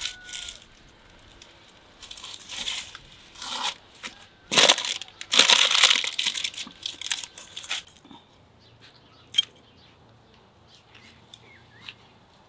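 Aluminium foil crinkling and rustling in several bursts as the foil-lined tray under a roast is handled, loudest from about four and a half to eight seconds in; after that only a few light clicks.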